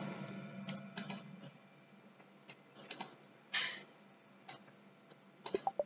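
A handful of separate sharp clicks at uneven intervals, typical of a computer mouse and keyboard, with a quick cluster of clicks near the end. Under them a faint steady hum fades away in the first second or so.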